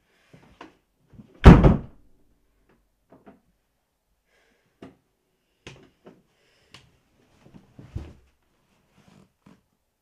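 A wooden interior door slammed shut hard about one and a half seconds in. Several faint knocks and rustles follow as a person leans back against the door and slides down it to the floor.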